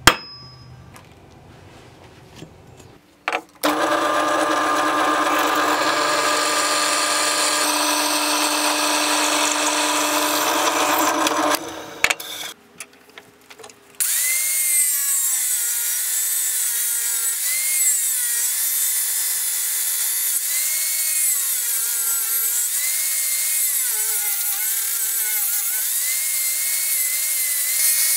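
A single sharp tap at the start as the rusty steel railroad spike is centre-punched. Then a drill runs steadily for about eight seconds, boring a 5/16" hole through the spike. From about halfway through, an angle grinder whines as it cuts into the spike's steel, its pitch dipping and recovering again and again as the disc bites under load.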